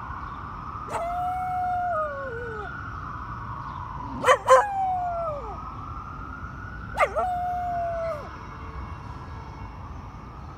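A Cardigan Welsh Corgi howls along with a wailing emergency-vehicle siren, three times. Each howl is held and then slides down in pitch, and the middle one opens with two sharp yips. The siren keeps rising and falling slowly underneath and goes on after the dog stops.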